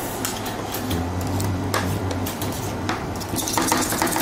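Metal spatulas chopping and scraping ice cream mix on the stainless steel freezing plate of a rolled ice cream machine: a string of clicks and clinks, turning into quick rapid chopping taps near the end.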